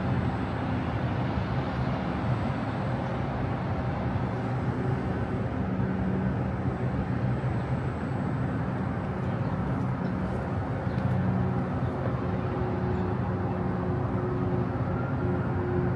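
Steady city street traffic heard from ten floors up: a continuous low hum of vehicle engines and tyre noise.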